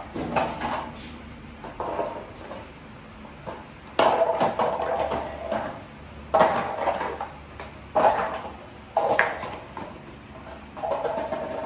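A small toy ball clattering on a tiled floor and knocking against metal furniture legs as a puppy bats it about: a handful of sharp knocks, the loudest four spaced a second or two apart, each ringing briefly.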